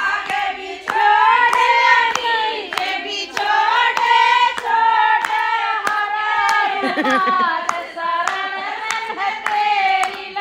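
A group of women singing a Hindi devotional song (bhajan) together to steady hand clapping, about two claps a second.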